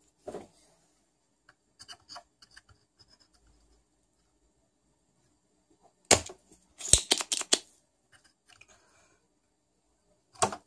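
Hand tools handled on a workbench: a few faint clicks, then a burst of sharp clicks and clatter about six seconds in, and one more sharp click near the end.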